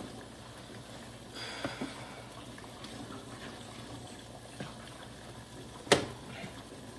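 Pot of water boiling on the stove, with the wet stirring of thick mash in a plastic tub and one sharp knock about six seconds in.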